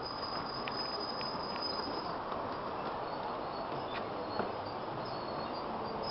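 Model trains running on a layout: a steady rumble of small wheels on track, with a few faint clicks. A thin high-pitched whine sits over it, strongest in the first couple of seconds.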